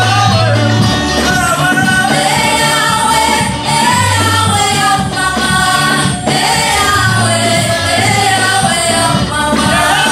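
Live gospel praise-and-worship music: a group of women singing together with a man's voice, over electric guitar and sustained bass notes that shift every second or two.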